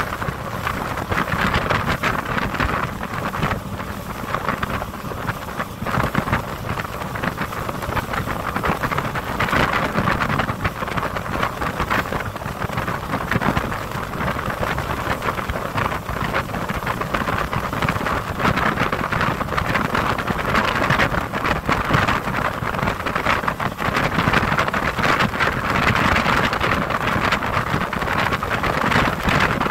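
Motorboat underway: wind buffeting the phone's microphone over the rush of the engine and water, a steady rough noise without a break.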